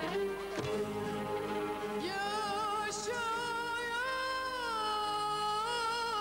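Music: a singer holding long, slightly wavering notes over instrumental backing.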